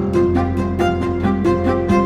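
Background music made of quick, evenly spaced pitched notes, about four or five a second.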